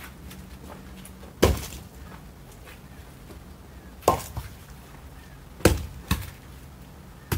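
Firewood logs thrown out of a trailer, landing with hard wooden knocks on a pile of logs. There are five knocks a second or two apart, two of them in quick succession about six seconds in.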